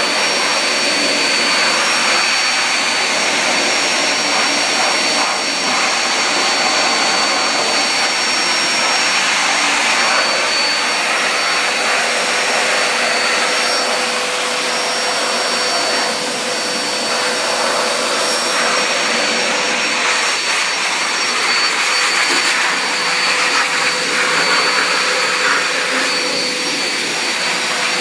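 Pet grooming blow dryer running steadily, blowing air through its ribbed hose to dry a wet kitten after its bath: an even rush of air with a faint steady whine on top.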